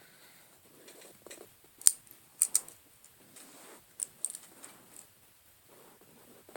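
A Victorinox Swiss Army knife being handled: a few sharp metallic clicks of its tools and scales, the loudest about two seconds in, with soft rubbing and fumbling between them.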